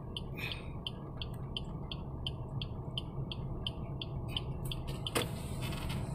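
A car turn-signal indicator ticking at an even pace, about three ticks a second, over the low hum of engine and road inside the cabin. The ticking stops after a sharper click about five seconds in.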